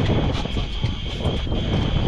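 Outboard motor running steadily with wind buffeting the microphone, and a few brief sharp clicks.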